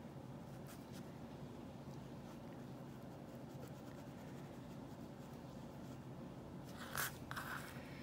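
Faint scratchy strokes of a paintbrush on a painted rock over a low room hum. About seven seconds in there is a short, louder scrape as the rock is shifted on the paper-covered work surface.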